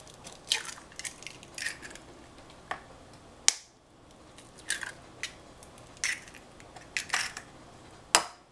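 Eggs tapped and cracked against a bowl, with shells being handled: a string of sharp, irregular clicks and cracks, the loudest about three and a half seconds in and near the end.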